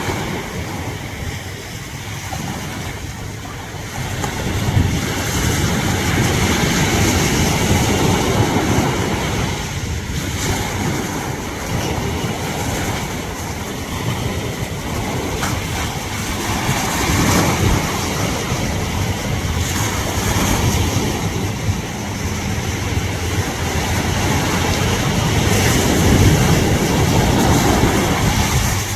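Pacific Ocean surf washing onto a beach, a steady rushing that swells and ebbs as waves come in, with wind buffeting the microphone.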